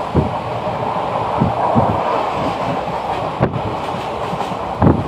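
Passenger train running at speed, heard from a coach window: a steady rush of wind and rolling rumble, with a few irregular thuds as the wheels strike rail joints.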